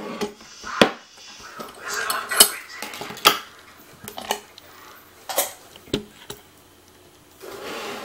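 Metal lock parts and tools clinking as they are handled and set down on a wooden tray: about six sharp separate clinks over several seconds, then a steady soft noise near the end.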